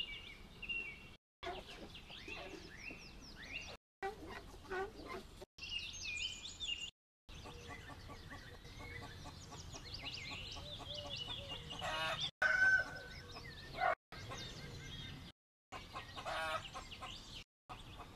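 Chickens clucking and calling in a string of short clips, each cut off abruptly by a brief silence.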